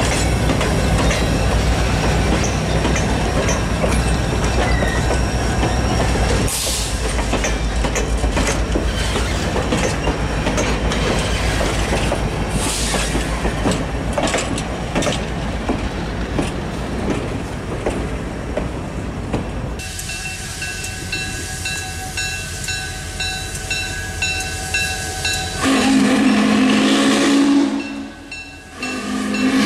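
Heavyweight passenger coaches rolling past, wheels clicking over the rail joints, for about twenty seconds. After that a repeated ringing is heard, and near the end a steam locomotive's whistle sounds twice, with a short break between.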